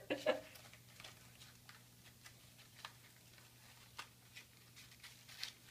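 A kitten playing with a crumpled paper ball on a concrete floor: faint, scattered light ticks and crinkles, a few a second at most, over a steady low hum.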